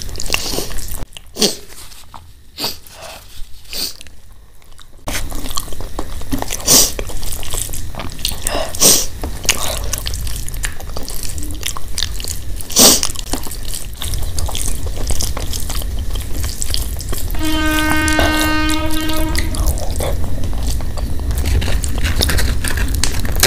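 Hand mixing rice with mashed-potato bharta and ghee on a steel plate: wet squelching with many small sharp clicks of fingers through the food. About 17 seconds in, a steady humming tone lasts about two seconds.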